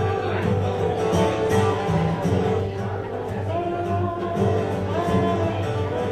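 Country band playing the song's instrumental intro live, with guitar over a steady bass pulse.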